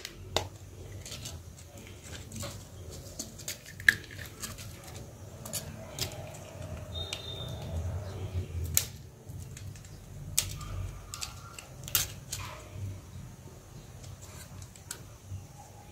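Scattered small clicks and clinks of a screwdriver against the small metal and plastic parts of a Micromax Q301 smartphone's stripped frame as it is taken apart, over a low handling rumble.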